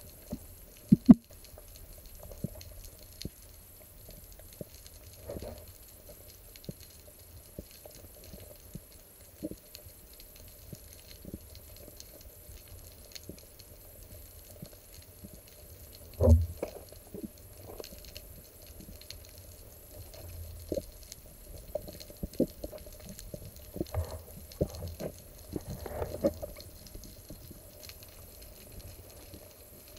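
Underwater ambience heard while swimming: a faint low water rumble with scattered clicks and knocks, the loudest knock about 16 seconds in and a cluster of knocks a little before the end.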